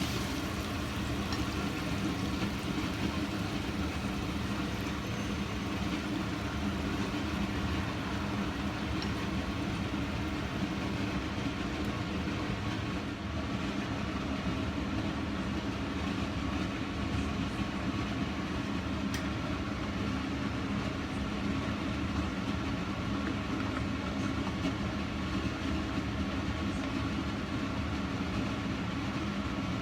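A steady low mechanical hum and rumble with a faint hiss, holding the same level throughout.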